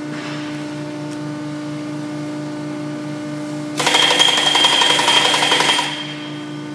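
Rotary draw tube bending machine running with a steady hum over a low pulsing drone. About four seconds in, a louder rattling, chattering burst of machine noise with a high ring lasts about two seconds, then drops back to the hum.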